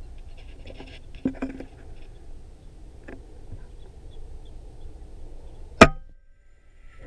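A single sharp shot from an FX Impact M3 .30-calibre PCP air rifle firing a 50-grain slug, about six seconds in and by far the loudest sound. Before it there is a steady low background noise with a few light knocks.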